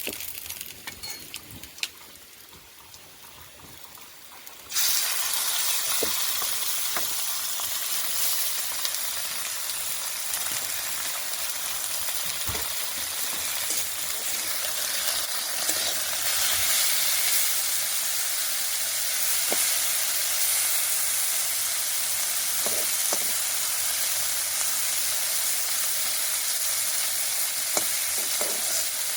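Small fish frying in hot oil: a loud, steady sizzle that starts suddenly about five seconds in, with a few scattered knocks of a utensil against the pan.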